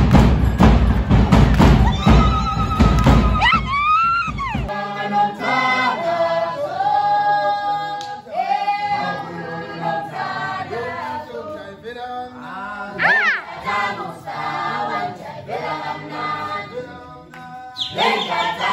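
A heavy drum-and-stamp beat for a Zulu dance stops about five seconds in, and a group of Zulu performers sings unaccompanied, with a shrill rising cry twice. The beat starts again near the end.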